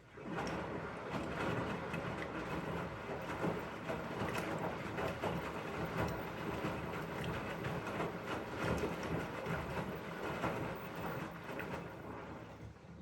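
Beko-built Elin washing machine turning its drum during the rinse, motor running and wet laundry tumbling. Starts abruptly, runs steadily for about twelve seconds and tapers off near the end as the drum comes to rest.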